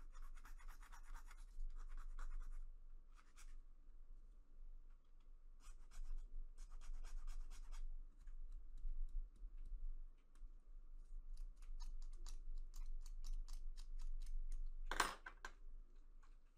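A metal hand file rasping along the edge of a plastic miniature part, filing a bevel into the joint to remove plastic, in bursts of strokes with short pauses. Later the strokes turn into quick light ticks, with one brief louder scrape near the end.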